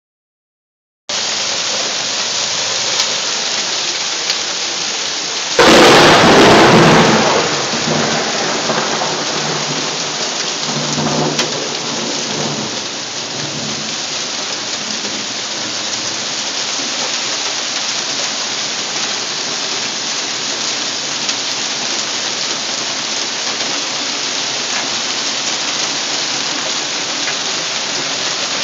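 Hail pelting down steadily in a heavy hailstorm: a dense, even hiss. About six seconds in, a loud crash of thunder breaks over it and rumbles on low for a few seconds.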